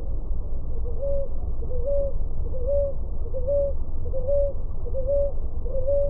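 Ruddy ground dove cooing: a soft, low note repeated steadily about every 0.8 s, each rising briefly and then held, starting about a second in. A steady low rumble runs beneath.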